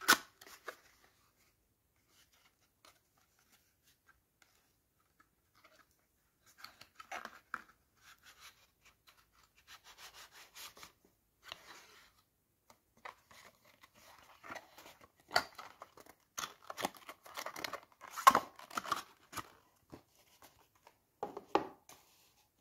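Paperboard perfume box handled and opened by hand: intermittent rustling, rubbing and scraping of the card with small taps. It is mostly quiet for the first few seconds and busiest in the second half as the bottle is slid out.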